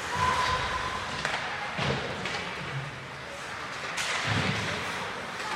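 Ice hockey rink noise: several dull thuds, about three spread through the few seconds, like the puck or players hitting the boards, over a steady arena background. A short steady tone sounds right at the start.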